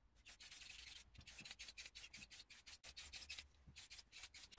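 Faint hiss of an aerosol spray paint can, sprayed in rapid short bursts of about six a second, with brief breaks about a second in and near the end.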